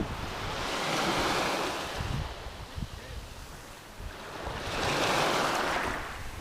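Ocean surf washing onto a beach: two waves swell up and fade away, the first peaking about a second in and the second near the end, with wind buffeting the microphone underneath.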